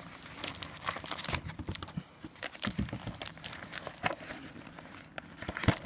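Hands handling an opened trading-card box: the cardboard lid, the paper checklist insert and the foil-wrapped packs rustle and crinkle, with irregular small clicks and taps.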